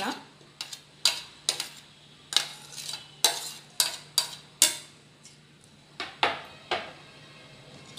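A metal spoon scraping and clinking against a stainless steel mixing bowl as chopped leaves are pushed in and stirred through grated carrot and onion. There is a quick string of sharp clinks in the first five seconds, and only a couple more a little after six seconds.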